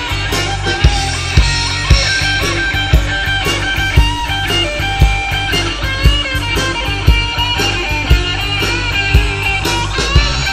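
Live rock band playing an instrumental passage: distorted electric guitars and bass guitar over a steady drum beat.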